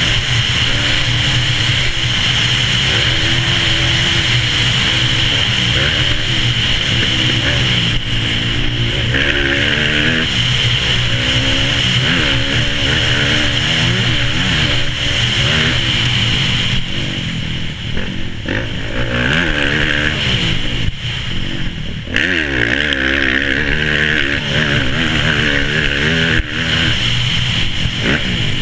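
Off-road racing dirt bike engine at race pace, heard from a helmet-mounted camera, revving up and falling back over and over as the rider works the throttle and gears. It briefly drops off twice in the second half.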